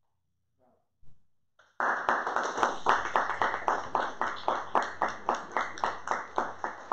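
Audience applauding, breaking out suddenly about two seconds in, with hand claps coming in a steady rhythm of about four to five a second.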